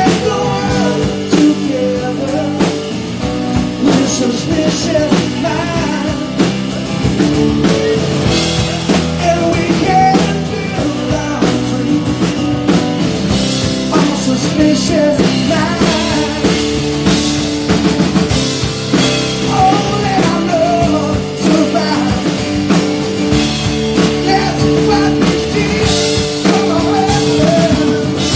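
Live rock band playing: drum kit, electric bass and acoustic guitar, with a man singing.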